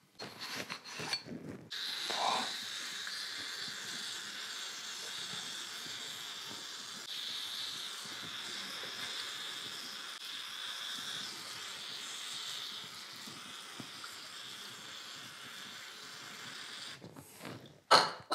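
Aerosol spray can hissing in one long steady spray of about fifteen seconds, its thin straw nozzle spraying cleaner onto a rusty ignition Hall-sensor unit. A few clicks and knocks before the spray starts and again near the end.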